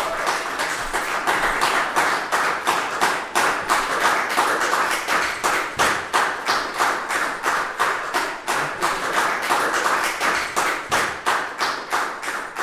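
Audience applauding, the claps falling into an even rhythm of about three a second.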